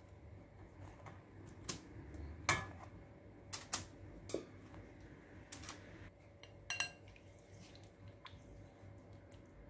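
Scattered light taps and clicks as eggplant slices are set down and shifted on a parchment-lined baking tray. About seven seconds in comes one short ringing clink, a basting brush knocking against a ceramic bowl.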